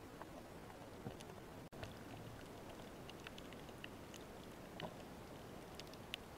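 Faint underwater ambience picked up through a camera's waterproof housing: a low, even hiss with scattered small clicks and crackles, cutting out for an instant about two seconds in.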